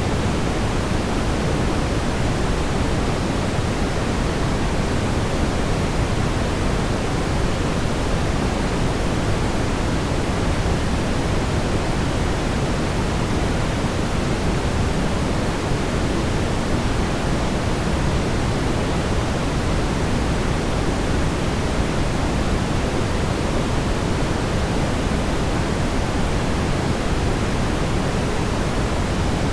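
Steady brown noise: an even, unchanging rumbling hiss, strongest in the low end and fading toward the highs.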